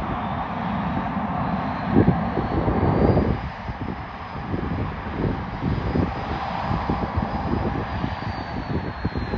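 Jet engines of a Ryanair Boeing 737 running as it rolls along the runway: a steady rumbling roar with a high fan whine that rises a little and then falls away near the end, and louder surges about two and three seconds in.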